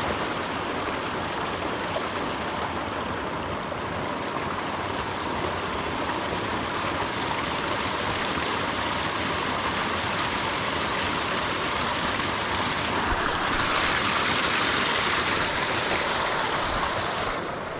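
Mountain stream rushing steadily, a little louder for a few seconds near the end.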